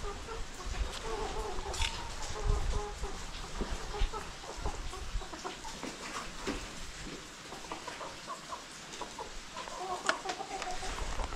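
Chickens clucking on and off, mostly in the first few seconds and again near the end, with scattered light clicks.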